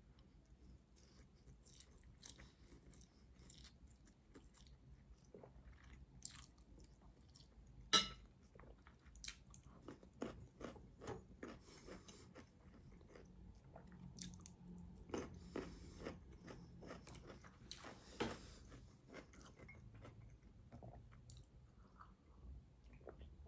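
Faint wet chewing of spaghetti and crunchy bites of a pickle, made up of many short crackles with denser bursts. There is one sharp click about eight seconds in.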